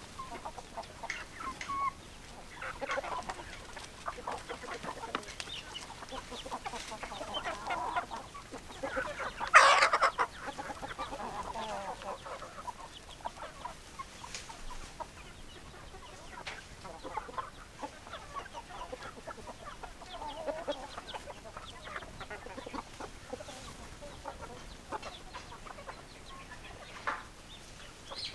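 Chickens clucking and calling on and off, with one loud call about ten seconds in.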